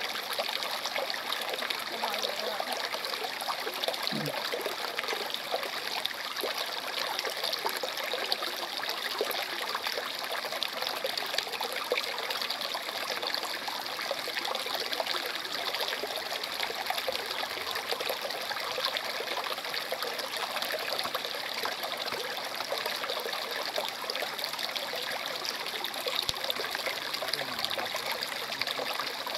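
Shallow stream trickling steadily, an even rush of flowing water.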